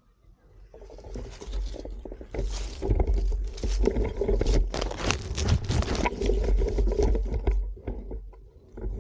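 Rustling and crackling of dry leaves and grass with handling knocks, as the rifle and its low-mounted camera are shifted down onto the ground. It builds about a second in and dies away near the end.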